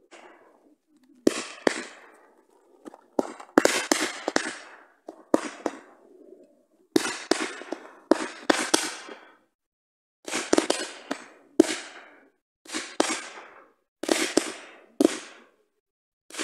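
Fireworks firing in the night sky: sharp bangs in quick groups of two to four, a group every second or two, with short silent gaps between groups.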